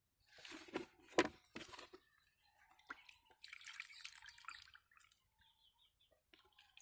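Liquid fertilizer solution poured from a plastic bucket, splashing and trickling onto rice-husk mulch and soil in a grow bag, in two spells, with a sharp knock about a second in.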